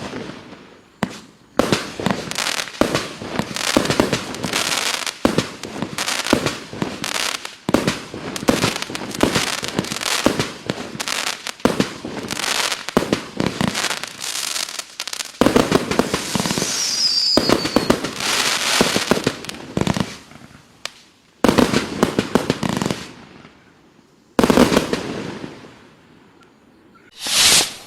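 Klasek Show 256 compound firework cake firing rapid volleys of shots, their breaks going off as dense runs of bangs and crackle, with short pauses between volleys. A falling whistle sounds about seventeen seconds in, and a brief hiss near the end.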